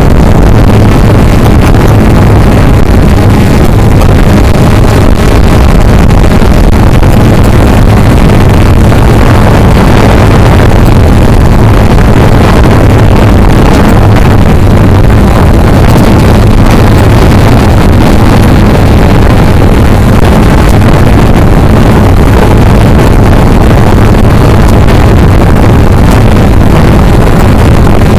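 Cheerson CX-20 quadcopter's electric motors and propellers running steadily in flight, a loud, even low hum picked up close by the camera carried on the drone.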